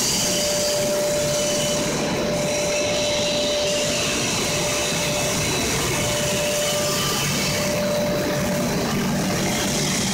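PVC granulating extruder line running: a steady, even machine noise with a constant whine through it.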